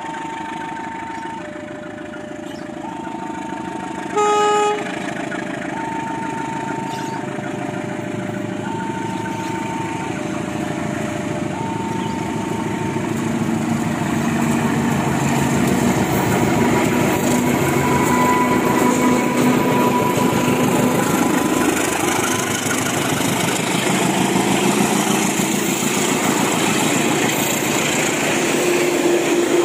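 Level-crossing warning alarm sounding an alternating two-tone pattern, with a short horn blast from a GE CC203 diesel-electric locomotive about four seconds in. From about halfway the locomotive's diesel engine and the rumble of the passenger coaches build up and stay loud as the train passes close by.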